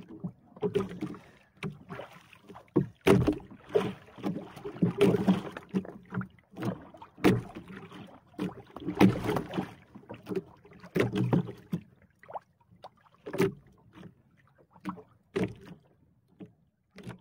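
Water slapping against the hull of a small outrigger fishing boat, with knocks on the boat in irregular bursts. The bursts thin out to scattered clicks over the last few seconds.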